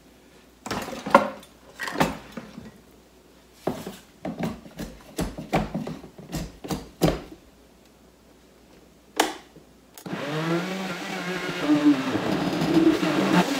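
Plastic knocks and clatter as the blender jar and lid are handled and pressed into place. About ten seconds in, a high-powered Vitamix blender motor starts and runs, its pitch rising as the speed is turned up while it blends a jar packed with pineapple chunks.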